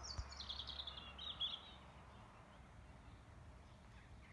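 A small songbird sings one short phrase of quick high notes that fall in pitch, lasting about two seconds from the start, then faint outdoor background.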